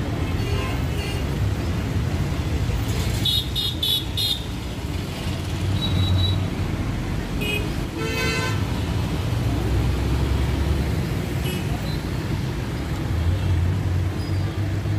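Road traffic with steady engine rumble. A quick run of short car-horn toots comes about three to four seconds in, and a longer horn note sounds around eight seconds.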